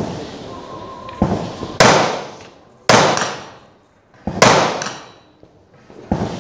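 Carbine shots fired one at a time, about a second or more apart. Each sharp crack echoes and dies away over about a second, and fainter cracks come between them.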